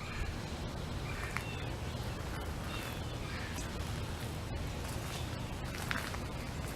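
Steady low outdoor background with a few faint, short bird chirps in the first few seconds.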